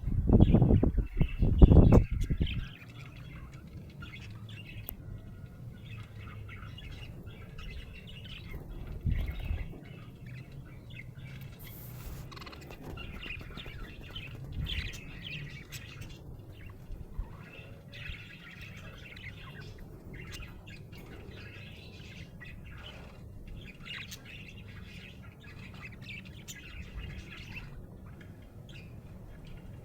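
Budgerigar chirping and chattering continuously in quick, high twittering calls. A loud low rumble with thumps fills the first two seconds or so, with another low thump about nine seconds in.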